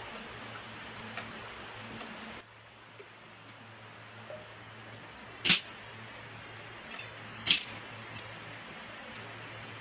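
Metal pieces clinking as engine parts and tools are handled: two sharp, loud clinks about two seconds apart, with lighter ticks between, over a low steady hum.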